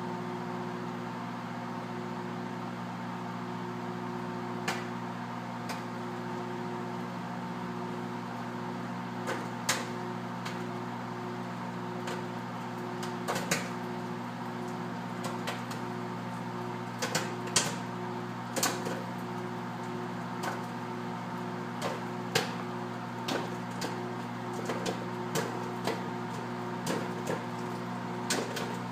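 Microwave oven running with a steady hum while popcorn pops inside: single sharp pops at first, coming more and more often toward the end.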